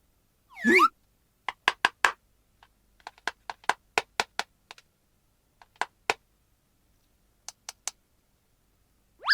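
Small plastic toy parts being handled, giving a string of sharp, irregular clicks and taps, about twenty over six seconds. A short warbling squeak comes just after the start, and a quick swooping sound effect at the very end.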